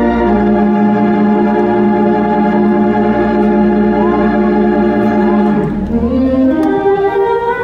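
Wurlitzer theatre pipe organ playing a held chord over a low pedal bass note, then, about five and a half seconds in, the bass drops away and the music moves up through a few notes to a new, higher chord.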